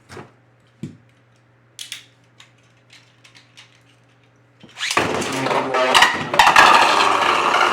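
A few small plastic clicks, then about 4.7 s in two Beyblade spinning tops, one of them 3D-printed, are launched into a plastic stadium. They spin with a loud, steady rattling whir and clash with sharp hits.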